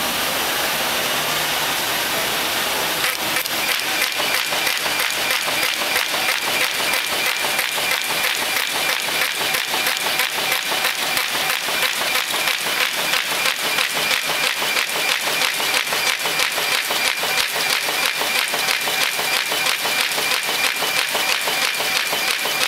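Diploma 4z3x automatic paper folding machine running, feeding, folding and gluing brochure sheets: a steady rushing noise that settles into a fast, even clatter about three seconds in, with a faint steady high whine.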